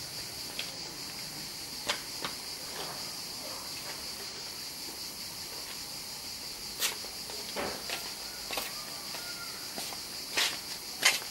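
Insects chirring steadily in the background, a continuous high-pitched trill, with a few sharp clicks scattered through it.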